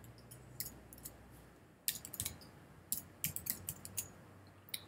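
Computer keyboard typing: sharp key clicks in short, irregular clusters.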